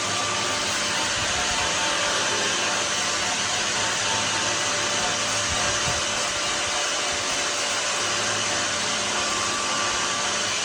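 A small motor running steadily with a rush of air over a low hum, like a blower or air-driven tool.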